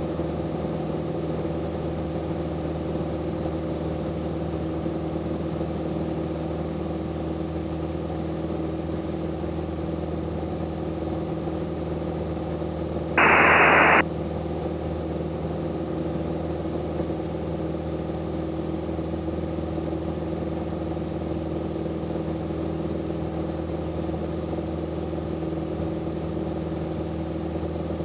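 Single-engine Grumman AA5B Tiger's four-cylinder Lycoming O-360 and propeller droning steadily in cruise, heard inside the cockpit. About halfway through there is one loud burst of radio static, just under a second long.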